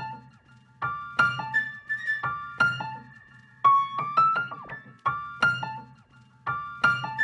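Background music: a light electric-piano melody in repeating phrases over a soft low bass.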